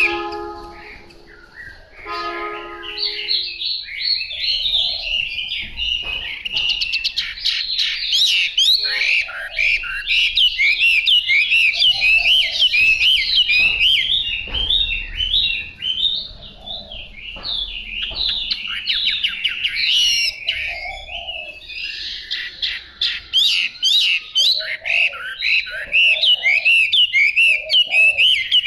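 Chinese hwamei singing a long, fast, varied song of rising and falling whistled notes, with a couple of brief pauses.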